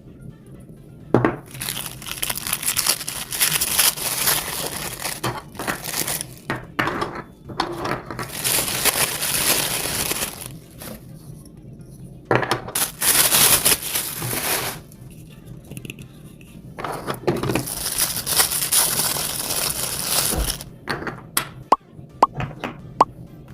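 Plastic or paper packaging crinkling and tearing in four long bursts, with a few sharp clicks near the end.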